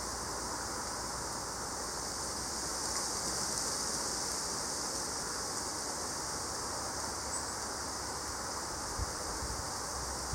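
Steady wind rushing through trees, swelling a little about three seconds in.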